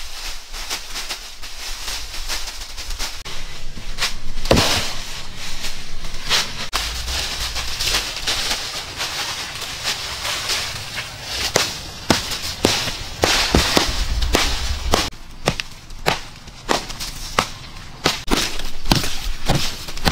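Sharp knocks of a wooden club pounding dry earth, coming thick from about halfway through at roughly two a second.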